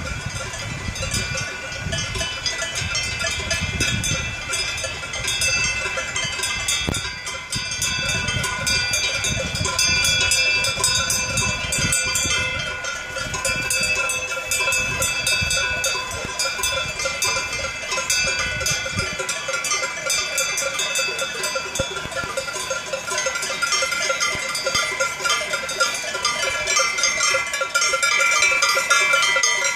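Many cowbells on a herd of cows ringing continuously and unevenly as the animals walk along, with the tones of the different bells overlapping: cattle being moved between alpine pastures. A low rumble underneath stops about two-thirds of the way through.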